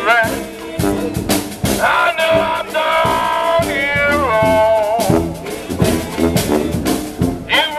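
Dixieland street band playing live jazz: snare drum keeping a steady beat under sousaphone bass and saxophone. About halfway through, a long held note slides down at its end.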